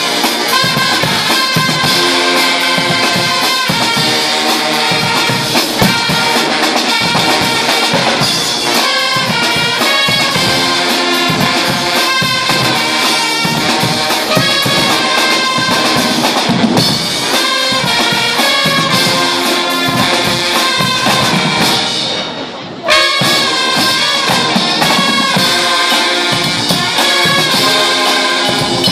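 Guggenmusik carnival band playing loud brass (trumpets, trombones, saxophones and sousaphones) over a steady march beat of bass drum, snare drum and cymbals. The music dips briefly about two-thirds of the way through, then comes back in at full volume.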